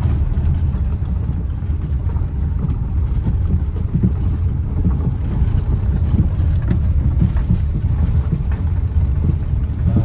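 Steady low rumble of a car driving, engine and tyre noise heard from inside the cabin, with a few faint knocks from the road surface.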